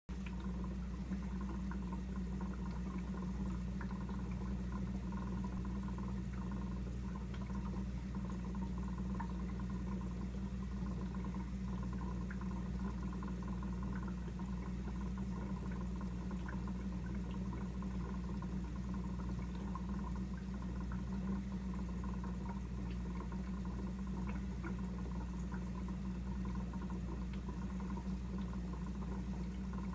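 Aquarium aeration: a steady stream of air bubbles rising and bubbling at the water surface, with small pops scattered through it, over a steady low hum.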